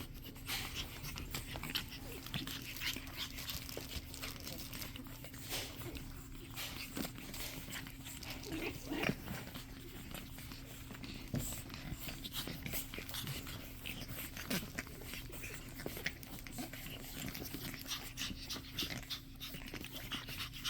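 Pug puppies panting and scuffling about, with many small scratches and clicks and a brief whine about nine seconds in, over a steady low hum.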